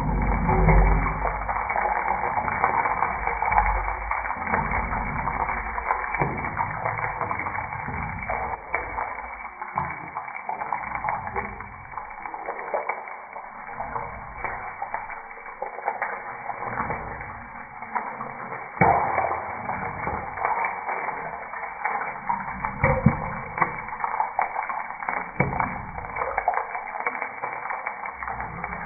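Hot cooking oil sizzling in a pan, a steady hiss dotted with many small crackling pops. A single louder knock comes about nineteen seconds in.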